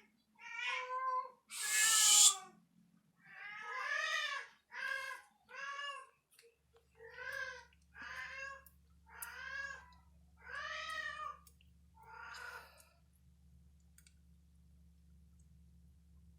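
A cat meowing over and over, about ten meows roughly a second apart, the second one the loudest, stopping about thirteen seconds in.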